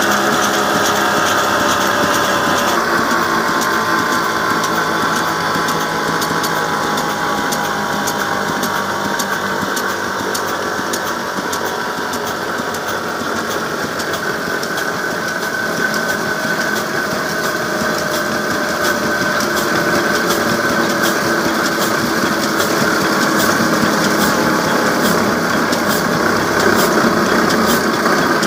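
Old stationary diesel engine with a large flywheel, running steadily while it drives a flour mill (chakki), with an even rhythm of sharp knocks.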